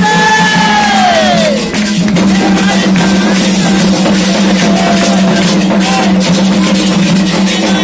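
Candomblé ritual drumming, hand drums beating a steady rhythm. A voice singing a long note slides down and fades in the first second and a half. A steady low hum sits under the drums.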